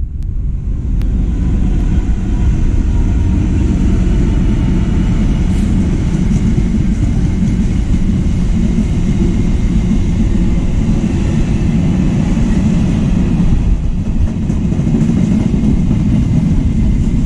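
Class 66 diesel-electric freight locomotive passing, then its train of empty container flat wagons rolling by, a steady loud rumble of engine and wheels on rail.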